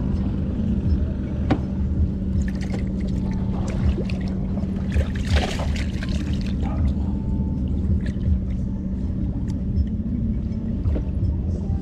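A small engine running steadily with a constant low hum, with water splashing and small knocks over it, a brief louder splash about halfway through.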